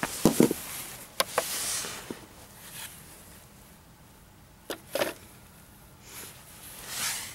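Short knocks and a clatter from a blender's salvaged electric motor being handled and set down on a plastic digital scale. The loudest knock comes near the start, a sharp click about a second in, and two more knocks just before the five-second mark.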